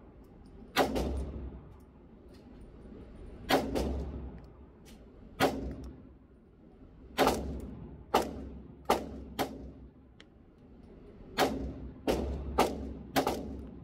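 Shots from a Hi-Point CF380 .380 pistol fired on an indoor range: about eleven reports at uneven gaps, each with a short echo, coming quicker near the end.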